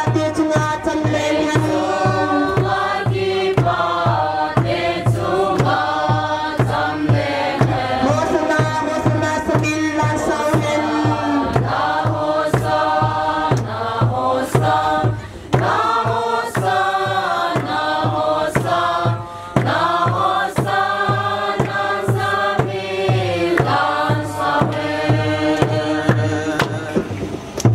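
Song with sung voices over instrumental backing and a steady beat.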